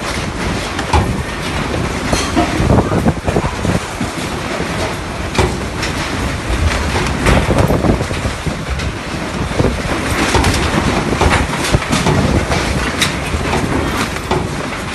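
Strong gusting wind buffeting the microphone with a deep rumble, with frequent clattering knocks throughout.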